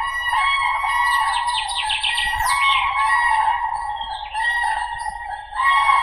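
Common cranes calling, loud overlapping trumpeting calls that run on without a break. About a second in there is a quick run of short, higher rising notes, and a new loud call begins near the end.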